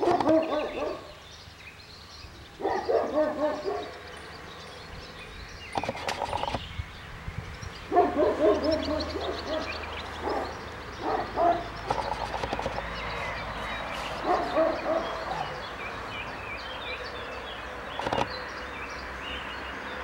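Animal calls in short bouts of about a second each, repeating every couple of seconds.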